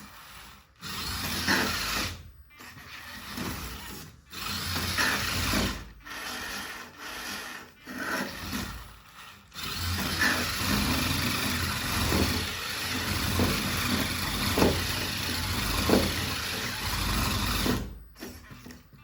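A small RC toy car's electric motor and plastic gearbox whirring, with its wheels rubbing and grinding in stop-start runs. There are several short breaks.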